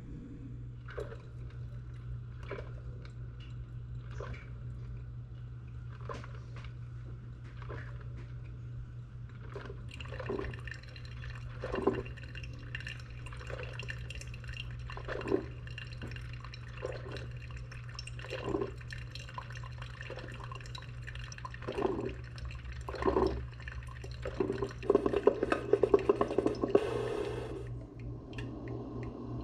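Water dripping, with single drops every second or two over a steady low hum. Near the end comes a rapid run of drops that stops suddenly.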